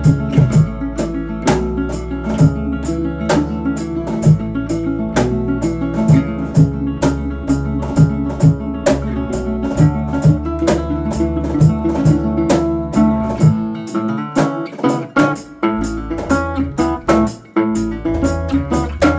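Acoustic blues band playing: fingerpicked resonator guitar and acoustic guitar over bass guitar, with a cajon keeping a steady beat. The bass drops out for about two seconds about two-thirds of the way through, then comes back.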